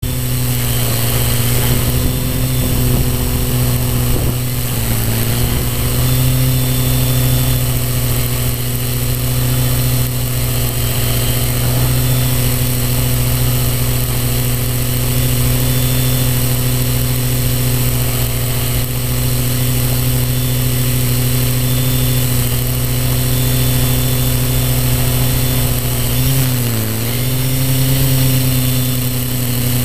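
A drone's motors and propellers hum steadily. The pitch dips briefly about five seconds in and again near the end.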